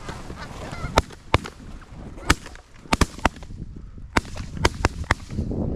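Volley of shotgun blasts from several hunters firing at Canada geese over decoys: about ten sharp shots in ragged succession, some in quick doubles and triples.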